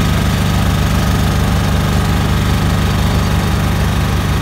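Engine of a CM F175-B mini asphalt paver running steadily while it lays asphalt, a low, even engine sound with a fast regular pulse.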